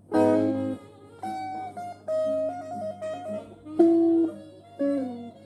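Electric guitar played solo: a loud chord struck at the start, then a single-note melody line with some wavering held notes, a sharp accented note about four seconds in, and a short falling phrase near the end.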